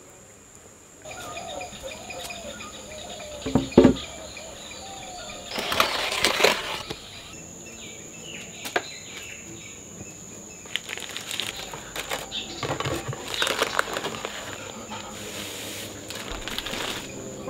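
Baking paper rustling and crinkling as a sheet of pink sponge cake is handled on it, with a few clicks and one sharp knock about four seconds in. Underneath runs a steady high insect drone.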